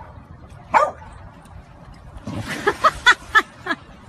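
A dog barking: one bark about a second in, then a quick run of about five barks over a rushing splash of water about two seconds in.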